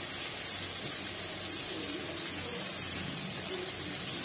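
Steady, low sizzle of onion, garlic and green chillies frying in mustard oil in a kadai as chopped green amaranth leaves are pushed in.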